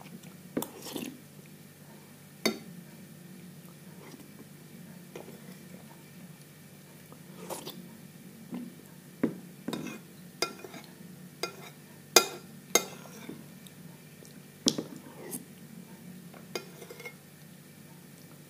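A metal spoon clinking and scraping against a ceramic bowl as semolina porridge is eaten: about a dozen sharp clinks at irregular intervals, the loudest about twelve seconds in.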